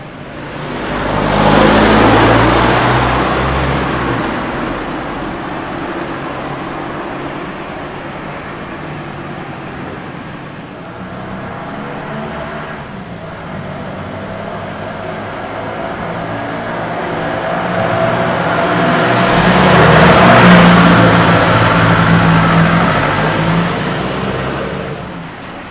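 Cars passing close by on a town street: one goes past about two seconds in, and a second builds up slowly to pass near the twentieth second, each a rise and fall of engine hum and tyre noise, with quieter traffic between.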